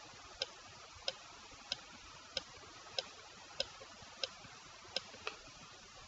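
Regular light ticking, about three ticks every two seconds, over faint room hiss.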